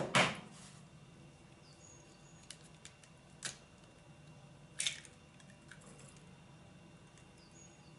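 A few soft clicks and knocks, the loudest about five seconds in: a hen's egg being cracked on a flat surface and its shell handled over a plastic egg separator in a steel bowl. A faint bird chirps twice in the background over a low steady hum.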